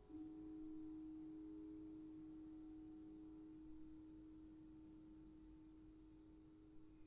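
A single low vibraphone note struck once and left to ring, a pure tone that slowly fades.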